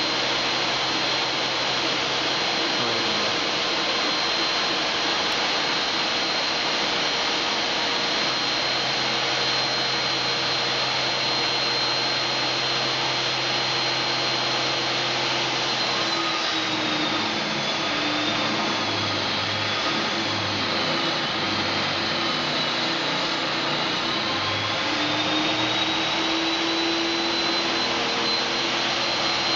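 N scale rack-railway train running, its small motor and gearing giving a steady whine over a constant hiss. The whine sags in pitch from about the middle for several seconds, then recovers, as the train works up the grade.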